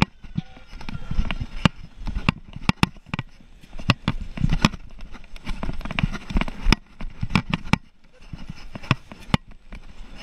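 A detection dog working among luggage: irregular sharp clicks and knocks, at times several a second, over a low rumbling.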